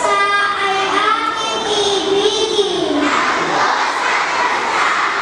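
A large group of girls' voices chanting in unison in a sing-song line, drawn out and falling in pitch, typical of scouts reciting their promise together with the scout sign raised. About three seconds in, the chant ends and gives way to a broad crowd hubbub.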